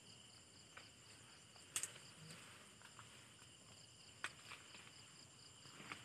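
Faint, steady chirring of insects, with a few sharp crackles of dry corn stalks and leaves being handled. The loudest crackle comes a little under two seconds in and another just after four seconds.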